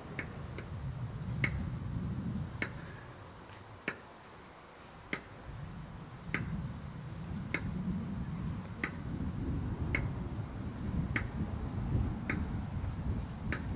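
Sharp, evenly spaced ticks, about one every 1.2 seconds, over a low rumble that rises and falls.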